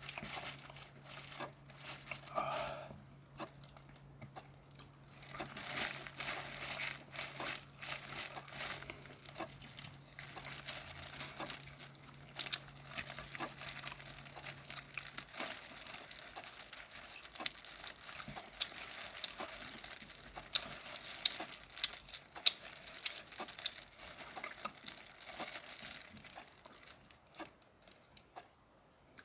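Steamed shrimp shells being cracked and peeled off by hand: a dense run of small crackling, crinkling and tearing clicks, quieter near the start and end. A faint low hum stops about halfway.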